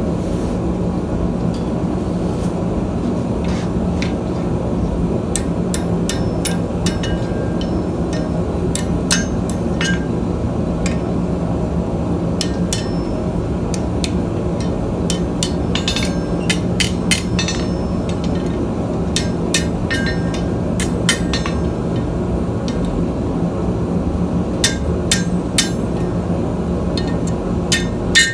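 Blacksmith's hammer striking steel in scattered, irregular taps that come more often in the second half, over a steady hum.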